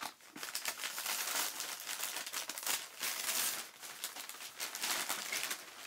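Paper wrapping crinkling and rustling in irregular bursts as an ornament is unwrapped by hand.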